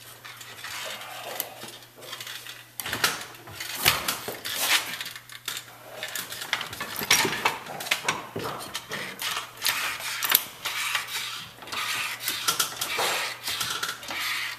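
Irregular knocks and metallic clattering as a hydraulic floor jack and a wooden post brace are set and adjusted under a wooden boat transom.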